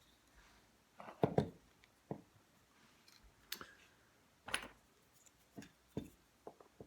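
Small clicks and taps of handling parts and fitting them back into a model locomotive body: a handful of short, sharp ticks at irregular spacing, the loudest cluster about a second in.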